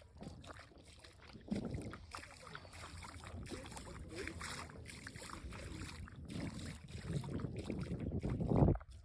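Shallow seawater sloshing and splashing, with wind rumbling on the microphone, growing louder toward the end.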